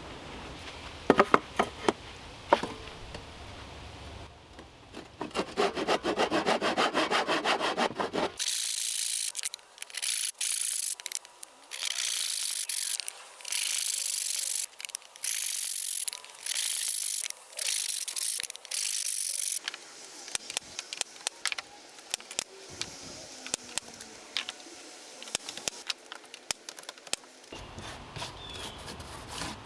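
Saw cutting through charred pine 2x4 pieces. A run of regular strokes about once a second fills the middle, with lighter scraping and knocks before and after.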